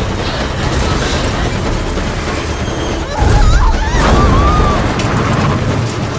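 Car-chase sound mix: a heavy, steady engine-and-road rumble, then a sudden loud boom about three seconds in, followed by a wavering high screech of tyres.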